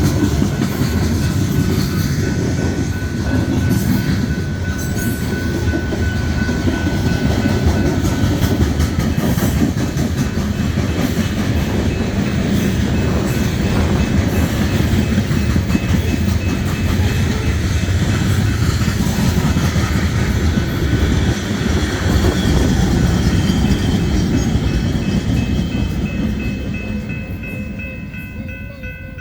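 A train's rail cars rolling past on the track in a steady, loud rumble that fades over the last few seconds as the train moves away.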